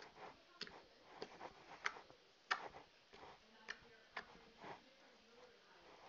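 Slime being squeezed and worked by hand, giving soft, irregular clicks and pops, roughly one every half second.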